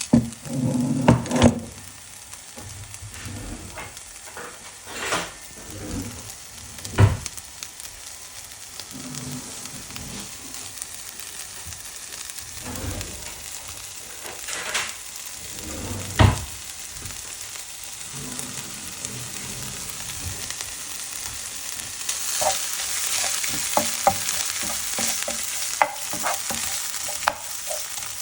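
Crushed fresh ginger frying in a little oil in a pan, sizzling steadily as it is stirred and scraped, with a few sharp knocks of the stirring utensil against the pan. The sizzle grows louder and brighter near the end.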